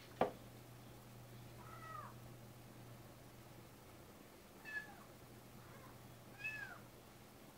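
A domestic cat meowing three times, short calls that rise and fall, a few seconds apart. Just after the start, a sharp knock as a plastic bottle is set down on the desk, over a low steady hum.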